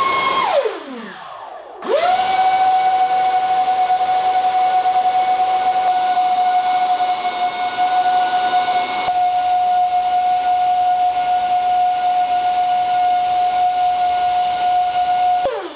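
The wing's 30 mm electric ducted fans (QX1611 6000 kv motors) running inside its internal ducting, a high whine over a hiss of rushing air. They wind down about half a second in, spin back up just before two seconds, hold a steady pitch, and wind down near the end.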